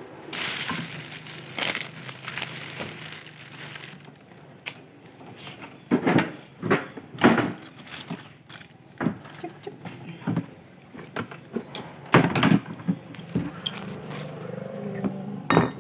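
Mealtime handling noises: a crinkling, crackling rustle for the first few seconds, then scattered sharp clicks and knocks.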